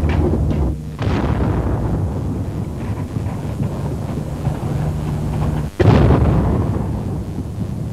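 Exploding artillery shells with a heavy continuous rumble. A sudden blast comes about a second in, and a louder, sharper one about six seconds in that fades over a second.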